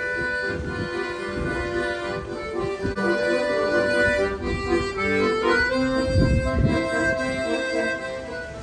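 Instrumental music: a melody of held, reedy notes over a chordal accompaniment. It stops near the end.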